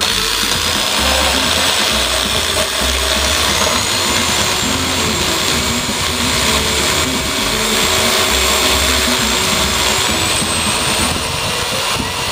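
Electric drill fitted with a grinding stone running at speed and grinding against a metal knob: a steady, loud grinding noise with a motor whine that rises a little in pitch about three seconds in and again near ten seconds.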